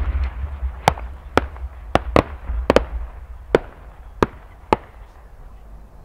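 Fireworks shell launch: the end of a loud mortar boom at the very start with a low rumble after it. Then a string of about nine sharp cracks over the next four seconds, thinning out toward the end, from the small effect charges attached to the shell's rising tail.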